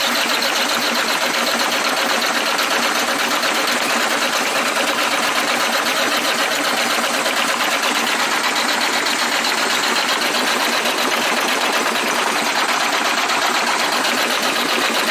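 Starter cranking a freshly overhauled Caterpillar 3406E diesel engine, a fast, even churning that keeps on without the engine catching. The engine is starved of fuel: a rag left inside is blocking the diesel from getting through.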